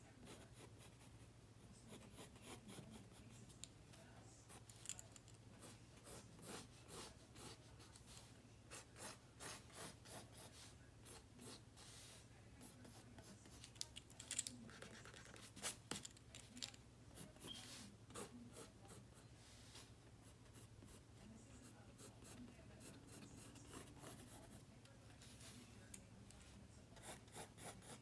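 Mechanical pencil sketching on sketchbook paper: faint, irregular scratchy strokes as lines are drawn, a few louder strokes about halfway through.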